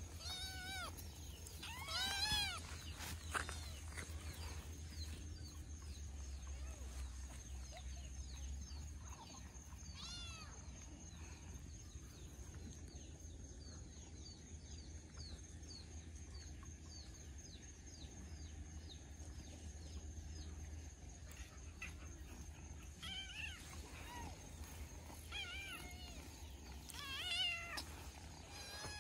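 Several kittens mewing: many short, high-pitched, arching meows, coming in busy clusters near the start, about ten seconds in and again near the end, with fainter scattered mews between.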